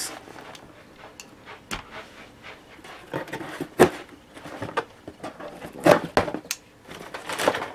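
Cardboard shipping box being opened by hand: flaps folded back and packing lifted out, with scattered rustles and scrapes and a few sharp knocks, the loudest about six seconds in.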